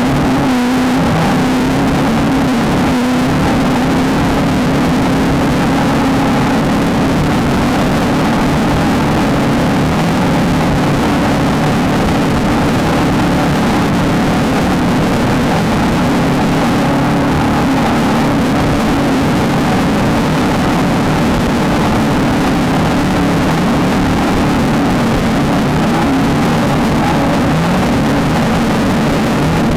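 Off-road race car engine running hard at steady high revs, its note wavering only slightly, over a constant rush of wind and chassis noise.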